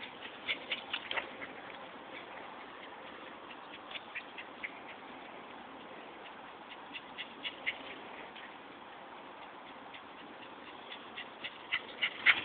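Small puppies playing on grass: clusters of quick, sharp ticks come a few times over a steady hiss, the loudest cluster near the end.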